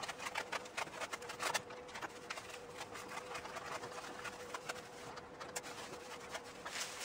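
Plastic packaging wrap crinkling and rustling in quick irregular crackles as it is pulled off a steel tow bar receiver hitch, over a faint steady hum.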